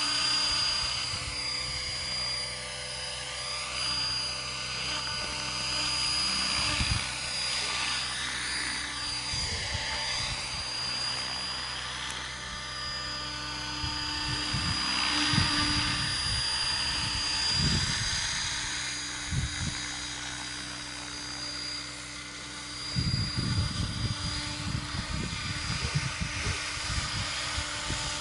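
Logo 500 3D electric RC model helicopter flying, with a steady high motor whine over the hum of the rotor blades. The pitch keeps gliding up and down as it manoeuvres. A gusty low rumble, like wind on the microphone, joins it for the last five seconds.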